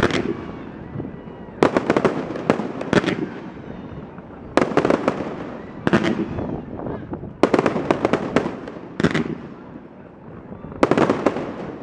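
Fireworks going off in quick clusters of sharp bangs, a new cluster every two seconds or so.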